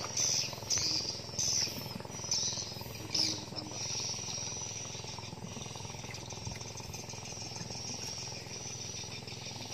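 Birds chirping in short calls about every second for the first few seconds, then a steady high insect drone, over a low steady rumble.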